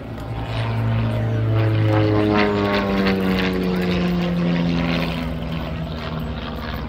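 Aerobatic biplane's piston engine and propeller passing by, swelling to its loudest mid-pass, with the engine note falling steadily in pitch as it goes past.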